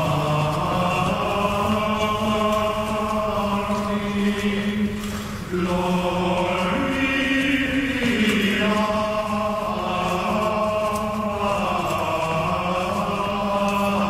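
Male voices chanting slow plainchant in long held notes that step from pitch to pitch, with a brief breath near the middle.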